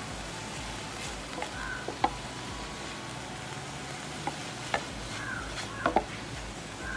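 Silicone spatula stirring and scraping a thick coconut-jaggery filling in a nonstick pan over a steady low sizzle. There are a few sharp taps and scrapes against the pan, the loudest about two seconds in and near six seconds.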